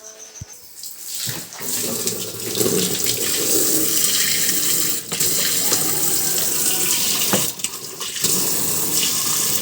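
Water running hard from a tap, starting about a second in and briefly dropping twice.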